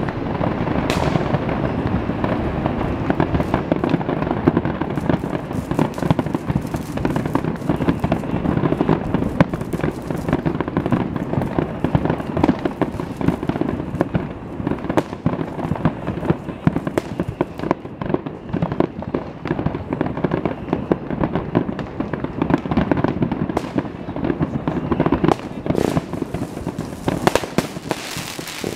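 A fireworks display barrage: many aerial shells bursting in quick, overlapping succession, a constant run of bangs and pops with no pauses, easing off a little near the end.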